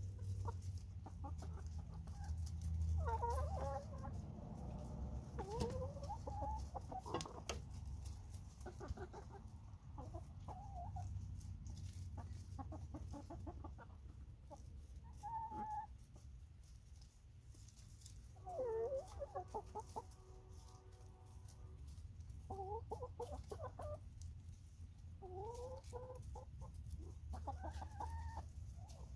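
A small flock of hens clucking, with short calls that rise and fall every few seconds while they feed. Scattered sharp taps of beaks pecking at grapes on the ground and a plastic tray run underneath.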